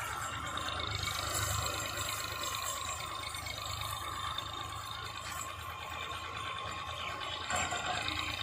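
Massey Ferguson 240 tractor's three-cylinder diesel engine running steadily with a low hum as it pulls a seed drill.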